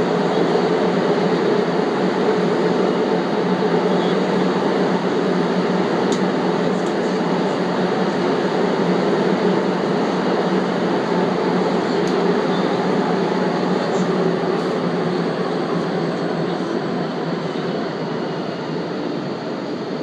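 Metro train running: a steady rushing rumble with a few faint clicks, easing slightly in level near the end.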